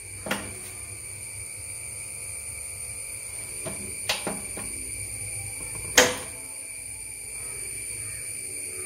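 A few sharp clicks, the loudest about six seconds in, over a steady low hum and a faint steady high whine.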